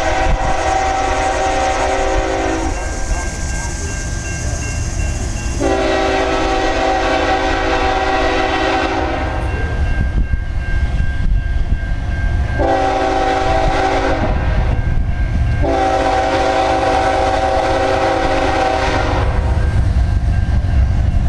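The air horn of a BNSF ES44C4 locomotive sounds the grade-crossing signal, long, long, short, long, as the train approaches. Beneath the blasts runs the low rumble of the locomotives, growing a little louder near the end as they close in.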